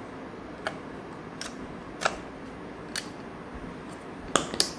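Sharp plastic clicks from a GoPro Hero 9's battery door and battery being opened and handled: about six short clicks, two of them close together near the end.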